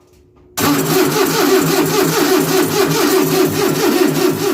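Starter motor cranking the freshly rebuilt Renault 10 four-cylinder engine in an attempt to start it, with a steady rhythmic pulse of the cylinders turning over and no clear catch. It kicks in about half a second in.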